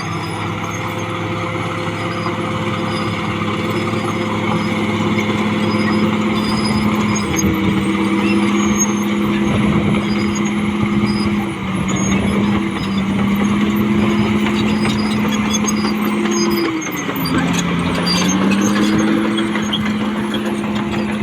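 CAT D6R XL bulldozer's diesel engine running steadily under working load. Its pitch sags briefly a few times, most deeply about three-quarters of the way through, as the engine lugs, then climbs back.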